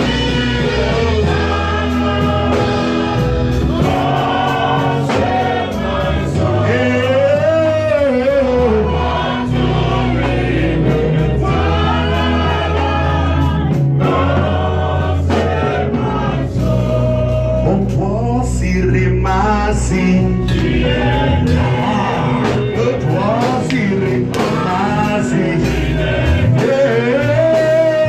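Gospel worship song: a group of voices singing over backing music with a held bass line that changes note every couple of seconds.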